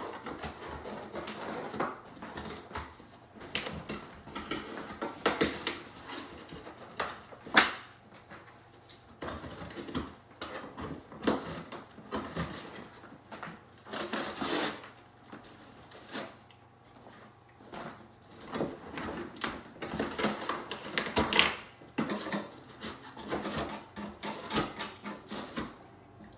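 A dog worrying at a small cardboard box: irregular scraping, rustling and tapping of cardboard, with one sharp knock about seven and a half seconds in.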